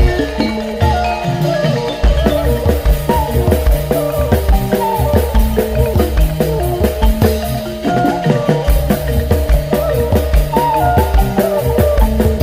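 Music with a steady beat, drums and repeated pitched notes.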